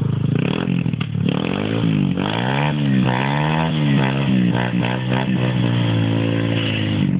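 Pit bike's small single-cylinder engine being revved: its pitch rises and falls four or five times in quick succession, then holds steady at a raised speed near the end.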